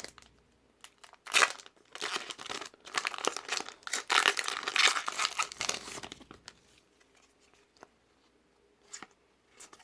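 Foil Pokémon booster pack wrapper crinkling and tearing open, a dense crackly rustle for about five seconds, followed by a few faint taps.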